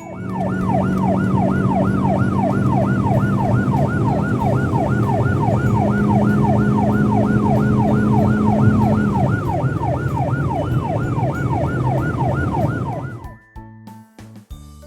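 Police siren in a fast yelp, the tone sweeping up and down about three times a second over a steady engine hum. It cuts off near the end.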